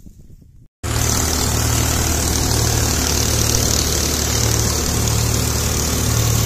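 Sonalika tractor's diesel engine running steadily, heard up close at the open engine bay. It cuts in about a second in.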